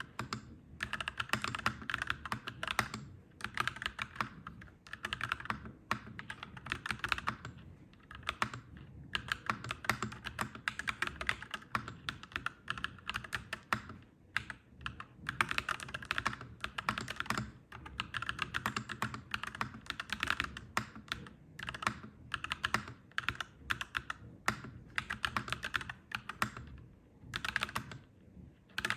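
Clacky mechanical keyboard being typed on in quick runs of key clicks, pausing briefly every second or two.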